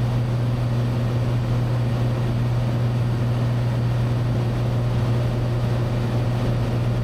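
Cessna 182T's six-cylinder Lycoming IO-540 engine and propeller droning steadily in cruise, heard from inside the cabin as a constant low hum.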